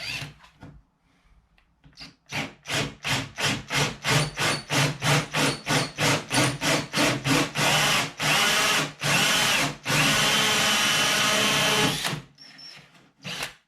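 Power drill driving a 38 mm hole saw through the boat's side. The trigger is eased on and off in short bursts, about three a second, then held in longer steady runs until it stops about twelve seconds in, with the hole cut.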